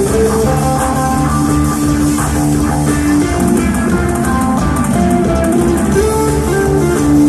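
Live jam band playing loud: a held melody line that moves from note to note over bass and a steady drum beat, recorded from the audience.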